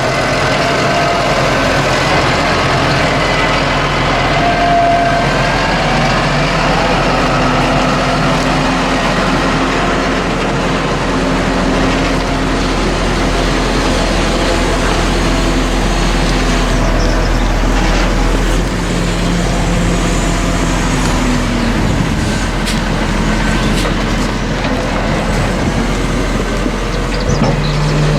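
Heavy diesel farm machine engine running, its pitch rising and falling a little as it works, over a steady low hum.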